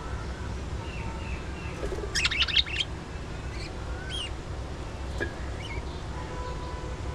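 Budgerigars chirping and whistling, with a loud burst of rapid, scratchy chatter about two seconds in, over a steady low rumble.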